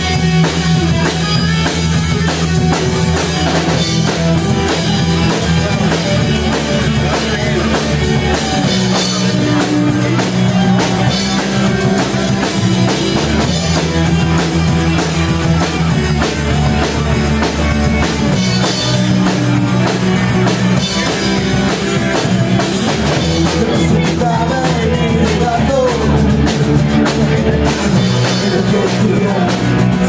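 Live hard rock band playing: distorted electric guitars, bass guitar and a drum kit, loud and steady, with a woman's singing voice near the end.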